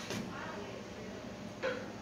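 Quiet room tone with a steady low hum, faint distant voices and two soft knocks, the second a little louder.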